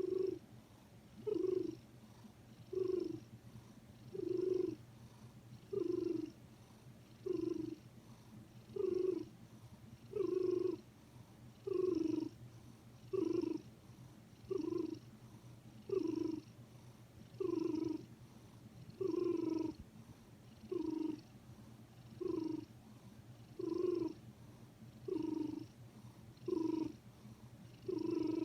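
Sleeping house cat making a short, soft sound with each breath, evenly about every one and a half seconds, which the owner is unsure is snoring.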